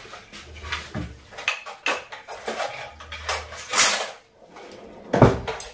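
A spoon clinking and scraping against a non-stick pan of cooking noodles as they are stirred, with a string of sharp knocks, the loudest about four seconds in and just after five.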